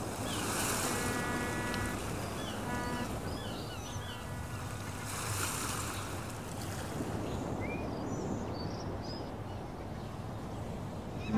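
Ocean surf washing ashore, swelling twice about five seconds apart, with birds calling and chirping over it.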